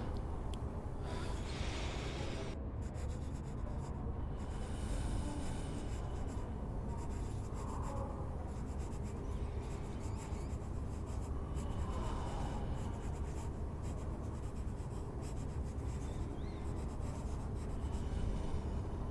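Scratching of writing on paper, in stretches of fine, quick strokes, over a steady low room rumble: library study ambience.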